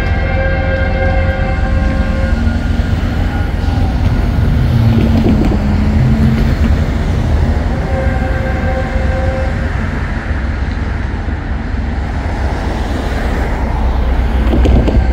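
Metrolink passenger train's multi-chime horn sounding long blasts: one fading out about two seconds in, another around the middle, and a third starting near the end. A steady low rumble runs underneath.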